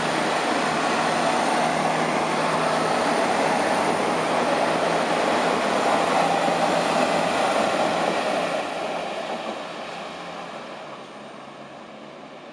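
Siemens Desiro Classic (DB Class 642) diesel multiple unit, two sets coupled, rolling past close by: a steady noise of wheels on rail and running diesel engines, which falls away from about eight seconds in.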